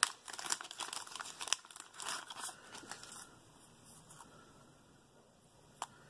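Clear plastic bag crinkling and rustling in the hands as a small electrolytic capacitor is taken off its taped strip. There are sharp clicks at the start and about a second and a half in. The handling dies down to faint rustle after about three seconds, with one more click near the end.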